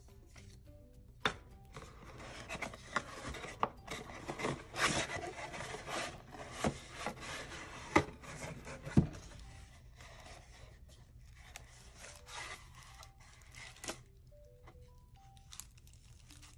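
Cardboard packaging being handled and pulled apart: flaps and inserts rubbing and scraping, with plastic wrapping rustling and a few clicks. Two sharp knocks about eight and nine seconds in are the loudest sounds, and the handling is sparser and quieter in the second half.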